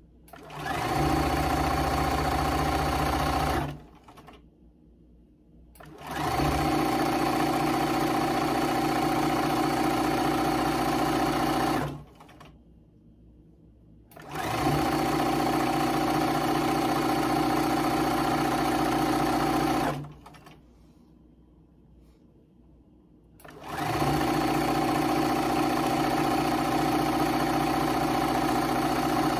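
Bernina sewing machine stitching a fabric tie strip at a steady speed, in four runs of a few seconds each with short pauses between them.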